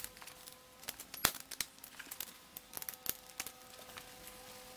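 Scattered light clicks and taps of small plastic tools being handled: the hoof glue cartridge, applicator gun and mixing card being picked up and readied, with a few sharper knocks.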